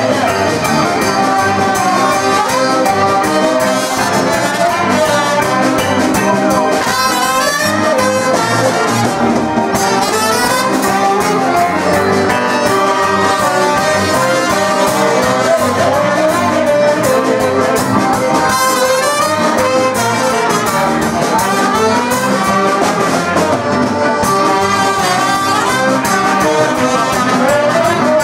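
Live dance band playing upbeat mulatós dance music: a saxophone carries a wavering melody over guitar and drums with a steady beat.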